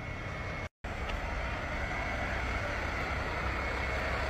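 Steady street noise with the low rumble of an idling semi-truck's diesel engine. The sound cuts out to silence for a moment just under a second in, then carries on unchanged.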